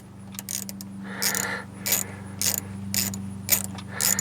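Ratchet wrench clicking about twice a second as it turns a screw out of the steering column, over a steady low hum.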